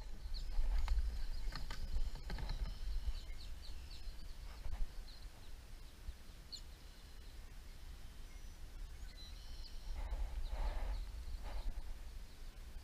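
Marsh ambience: a steady low wind rumble on the microphone, with small birds chirping through the first few seconds. Two brief soft rushing noises come about ten and eleven seconds in.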